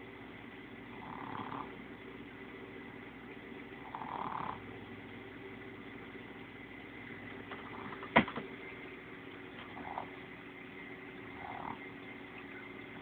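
Boston terrier snoring, a soft noisy breath about every two to three seconds over a faint steady hum, with one sharp click about eight seconds in.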